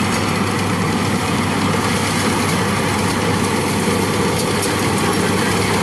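Yanmar 82V combine harvester running steadily as it cuts rice: a continuous engine drone with a steady low hum and machinery noise.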